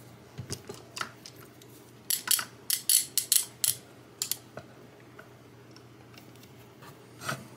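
Small bar clamp being set in place on a guitar body over a fresh glue repair: a quick run of sharp clicks and taps about two seconds in, with a few fainter clicks before it and one more near the end.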